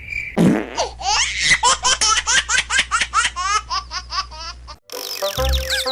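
A child laughing in a long run of quick, high-pitched syllables, about four or five a second, which cuts off about five seconds in. Children's music starts just after.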